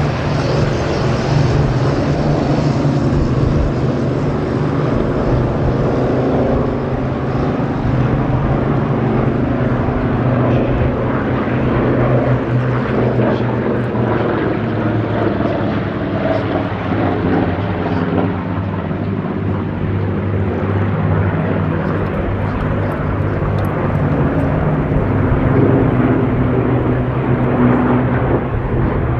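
Piston-engined Curtiss warbird fighters (P-40 Warhawks and P-36/Hawk 75s) flying a display, their propeller engines making a continuous loud drone whose pitch shifts as they manoeuvre.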